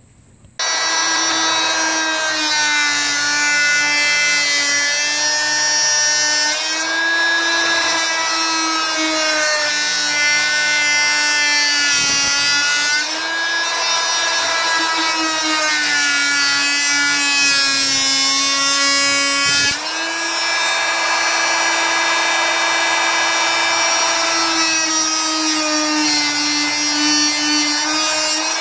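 Chicago Electric oscillating multi-tool cutting into a wooden guide, a steady high-pitched buzz whose pitch sags and recovers several times as it works. It starts about half a second in and dips briefly twice.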